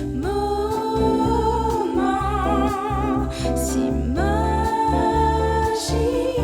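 Background music: a French pop love song with a sung voice holding long notes with vibrato, two phrases over a steady bass beat.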